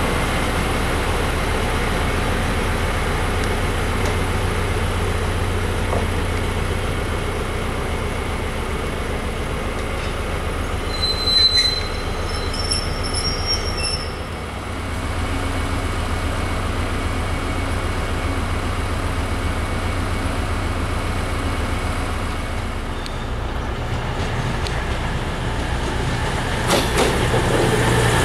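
Diesel engine of GB Railfreight Class 73/9 electro-diesel locomotive 73965, running steadily as it hauls a train slowly past, with a brief high wheel squeal about halfway through. Near the end a Virgin Voyager diesel train comes in and the sound grows louder.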